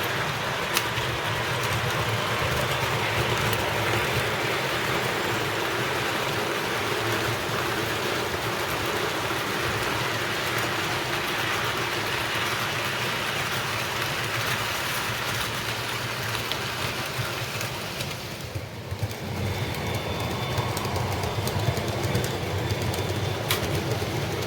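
O gauge model train running on the layout's track: steady rumble and wheel clatter of the locomotive and cars rolling over the rails. The sound dips briefly about three-quarters of the way through, then carries on.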